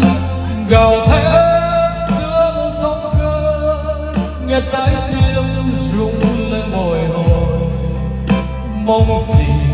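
A man singing karaoke into a wireless microphone over a backing track with deep sustained bass and guitar, played loud through an ATI 40 line-array speaker system and a single 50 subwoofer as a test of the new rig.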